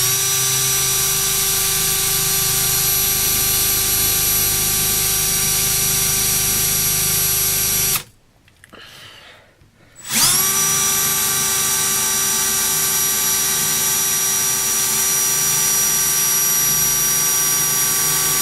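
Electric drill running at full speed with a titanium-coated high-speed steel bit pressed into a metal piece taken for aluminium, a steady whine in two long runs with a short pause about eight seconds in, each run starting with a quick rise in pitch. The bit is struggling and wearing away more than the metal.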